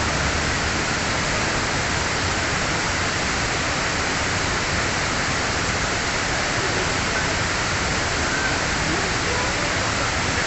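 Kuang Si waterfall's cascades rushing, a loud, steady, unbroken roar of falling water.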